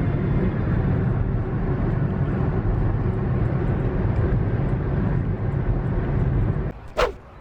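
Loud steady rumble of a vehicle on the move, road and wind noise heaviest in the low range, which cuts off abruptly near the end, followed by one brief sharp high sound.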